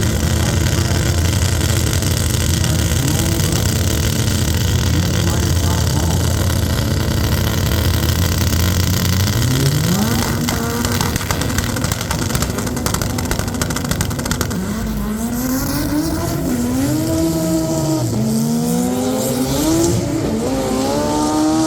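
Honda drag cars (a Civic and a CRX) at the start line, engines held at a steady high rev, then launching down the strip. Their engine pitch climbs and drops again at each gear shift, several shifts in a row.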